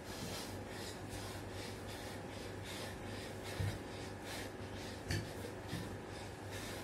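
A man's quick, sharp breaths, about two a second, in time with fast push-ups, with a few soft thumps on the floor. A steady low hum runs underneath.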